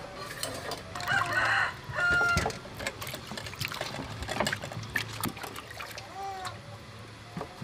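Peeled green mangoes being rubbed and turned by hand in a metal basin of water, with small splashes and sloshing. A rooster crows about a second in, lasting about a second and a half, the loudest sound; a shorter call follows near the end.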